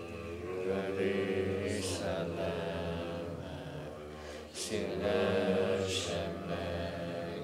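Low, steady Buddhist chanting of a dedication-of-merit prayer, the voice held on long drawn-out tones with a short dip near the middle.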